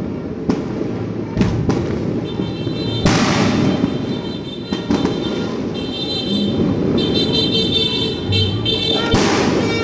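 Firecrackers and fireworks going off: scattered sharp bangs over a constant din of crackling. The biggest bangs come about three seconds in and just after nine seconds.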